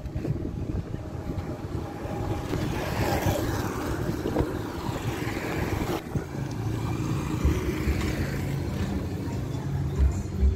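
Steady outdoor street noise: wind rushing over the microphone with motorcycle traffic on the road, swelling a little a few seconds in.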